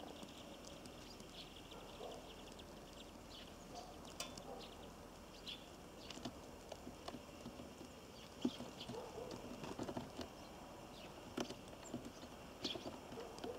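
Irregular light taps and clicks of birds pecking and landing at a bird feeder, with a few short, high chirps.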